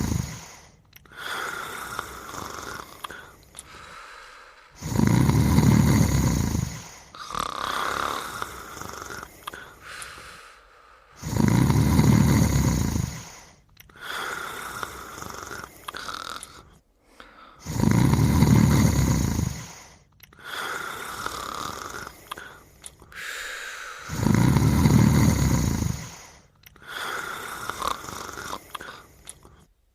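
Cartoon snoring of a sleeping character and her dog: a loud, deep snore about every six seconds, four times, each followed by a quieter, higher whistling breath.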